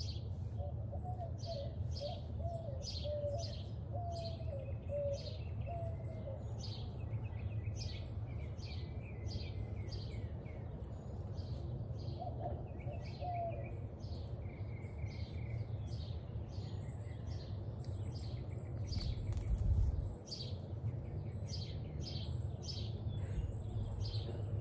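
Small songbirds chirping and twittering over and over, with a lower warbling song for the first several seconds and again about halfway, over a steady low rumble that swells into a brief low thud about twenty seconds in.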